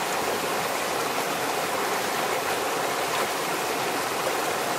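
A fast-moving mountain stream running over rocks and small cascades: a steady, even rush of water.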